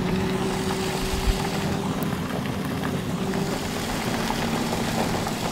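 Vehicle driving on a gravel road, heard from inside the cabin: a steady engine hum under continuous tyre and road noise.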